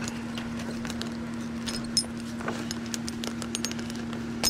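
A machine engine running steadily at one even pitch, with scattered light metallic clicks and clinks, one sharper click about two seconds in.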